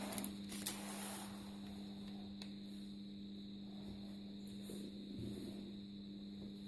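A steady electrical hum, with faint soft handling noises and a few light clicks as challah dough is worked by hand on a counter.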